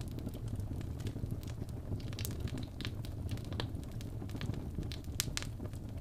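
Wood logs burning in a fireplace: a steady low rush of flame with scattered sharp crackles and pops, several coming close together in the middle and near the end.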